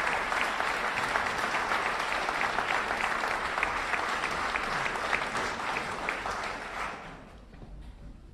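Audience applauding, a dense patter of many hands clapping that dies away about seven seconds in.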